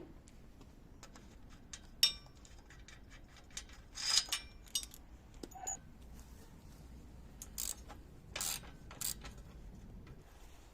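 Scattered metal clanks and clicks, as of tools and steel parts being handled. The loudest is a sharp clank with a brief ring about two seconds in, and smaller knocks follow in clusters around four seconds and near the end.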